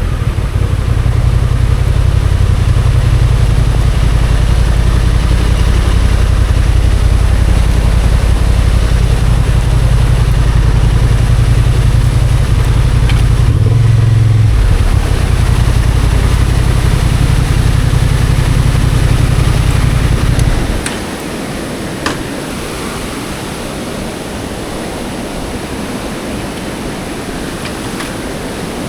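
Motorcycle running on the move, its engine and wind rumble on the microphone, with a brief change in note about fourteen seconds in. About two-thirds of the way through the rumble drops away, leaving a steady hiss with a few faint clicks.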